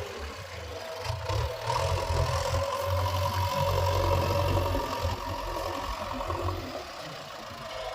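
Diesel engine of a JCB 3DX backhoe loader running under working load while digging, its low drone swelling and easing every second or so, with a steady whine over it.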